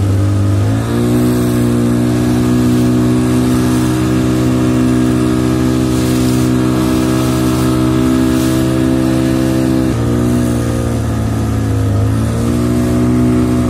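Small boat's engine running steadily at speed, with water hissing and splashing along the hull. The engine note rises about a second in, sags briefly around ten seconds and again near twelve, then picks back up.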